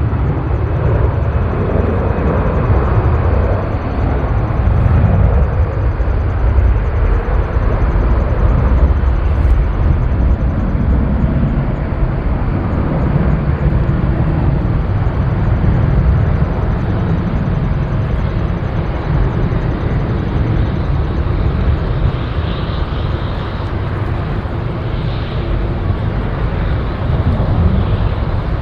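Boeing 737-800's CFM56-7B jet engines at taxi power: a steady low rumble with no break.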